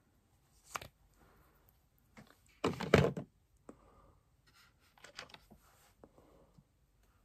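Knocks and clicks of makeup items being handled and set down on a table close to the microphone: a sharp click just under a second in, a louder thunk about three seconds in, and a few lighter clicks later.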